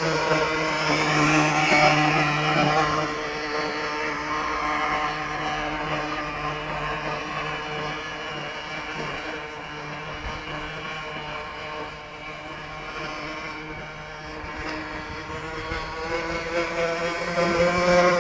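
Motor of a Lesro Rapier radio-controlled model speedboat running steadily as the boat crosses the pond. The drone is loudest a couple of seconds in, fades as the boat moves off, and grows louder again near the end as it comes back.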